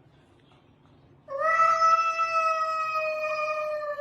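A cat's single long, drawn-out meow, starting about a second in and held steadily, sinking slightly in pitch as it goes on.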